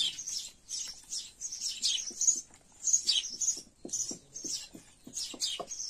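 Small birds chirping in a rapid, continuous run of short high-pitched calls, with a string of soft clicks in the second half.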